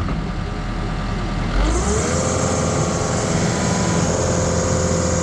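A loader's engine idling, then speeding up about one and a half seconds in and holding at the higher speed, with a steady hiss that starts as it speeds up.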